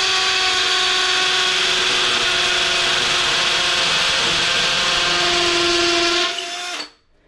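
Electric power drill running at a steady speed for about six seconds, then winding down and stopping.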